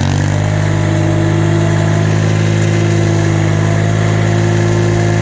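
Tractor engine running at steady high revs under load as the plow blade is lifted and the snow pushed back.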